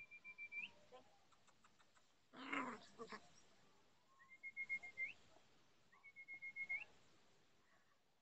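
Seven-week-old chocolate Labrador retriever puppies at play, with a short yelp about two and a half seconds in. Three brief, high, trilled calls, each flicking up at the end, repeat every couple of seconds.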